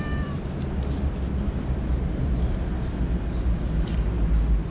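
Steady low rumble of city street traffic, with a few light clicks and rustles over it.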